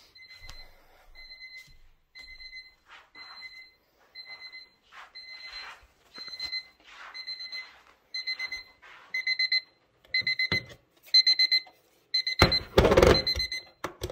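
Electronic alarm clock beeping, about one short two-tone beep a second, getting steadily louder. Near the end there is a loud burst of handling noise as a hand fumbles at the clock, and the beeping stops.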